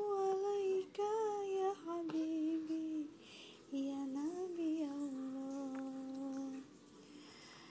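A woman humming a slow lullaby in long, held, wavering notes, with a short break about three seconds in and trailing off near the end.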